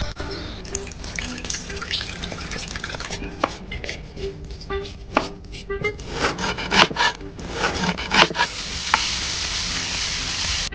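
Cooking sound effects: a run of sharp knocks and clatters of knife chopping and utensils against pans, then a steady sizzle of food frying over the last two or three seconds.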